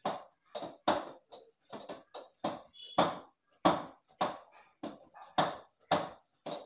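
Wheat dough being kneaded by hand in a steel plate on the counter: a quick, uneven run of knocks and slaps, about two a second, one with each push of the hands.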